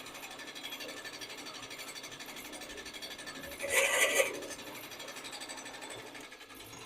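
Drill press running steadily with a 3/8-inch Forstner bit, which bores into the wooden blank for about half a second near the middle, a short burst of cutting noise over the motor hum.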